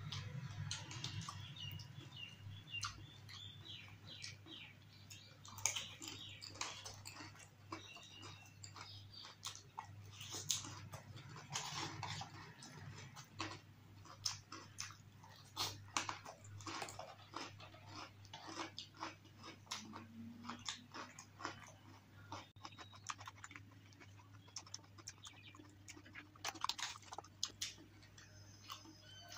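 Close-miked chewing and crunching of dahi puri: crisp fried puri shells and sev broken up between the teeth with yogurt, in irregular crackles and clicks.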